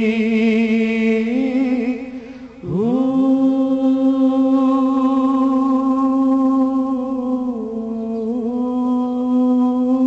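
A male naat reciter's voice singing devotional verse unaccompanied. He holds one long, wavering note that breaks off about two and a half seconds in, then draws out a second long, steady note.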